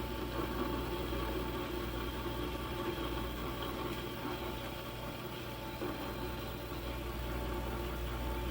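Metal lathe running steadily at about 200 RPM on a threading pass, a constant machine hum with a steady high whine. The tool is only turning the stock straight down rather than cutting threads, which the operator puts down to the lathe's control not working right.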